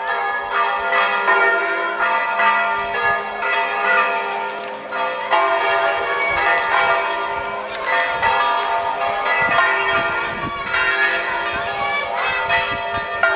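Bells ringing continuously, several tones sounding together and overlapping.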